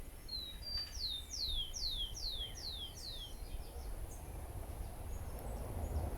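A songbird sings one phrase: two short high notes, then a run of five descending slurred notes about half a second apart.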